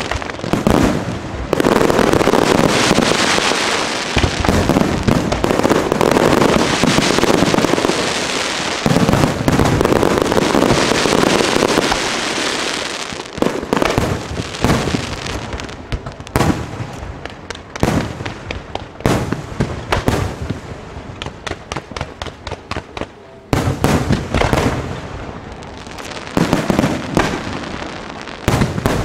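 Aerial fireworks going off in a dense, continuous barrage of bangs and crackling for the first dozen seconds or so. Then come separate sharp bangs in quick succession, with another dense flurry a little past the middle.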